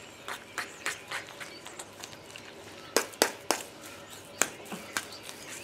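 Metal fork mixing mashed potatoes in a stainless steel bowl, with irregular clicks and clinks of the fork against the bowl. The sharpest are three in quick succession about three seconds in.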